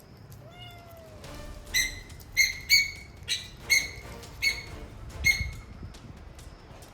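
A bird chirping: seven short, sharp, loud chirps roughly every half second, after a fainter, lower call near the start.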